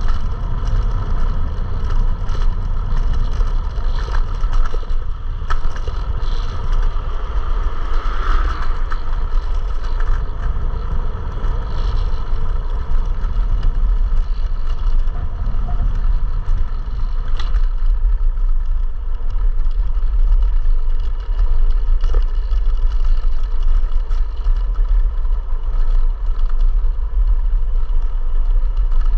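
Electric scooter riding along: heavy, steady wind rumble on the microphone mixed with road noise, a faint steady whine and scattered small clicks and rattles over bumps.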